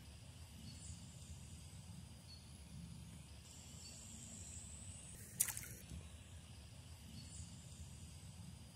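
Faint riverbank background with a low rumble and a thin high hum, broken by a single sharp click about five seconds in.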